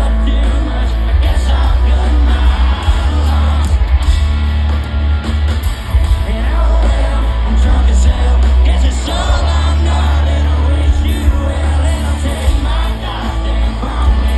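A red dirt country-rock band playing live with a lead singer, loud and steady, the bass heaviest, with shouts from the crowd.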